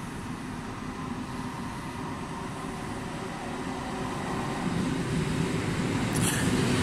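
EN57 electric multiple unit pulling into the station, its running noise growing steadily louder as it approaches.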